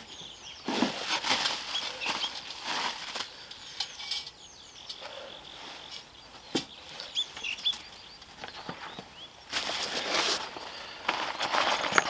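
Rustling and handling of packaging and stove parts being unpacked. The rustling comes in two spells, from about a second in to three seconds and again near ten seconds, with a single sharp knock about six and a half seconds in.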